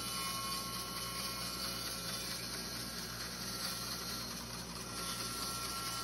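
Bandsaw running steadily while a cedar board is fed through it, with the whir of its dust collection: a constant machine hum and hiss that does not change.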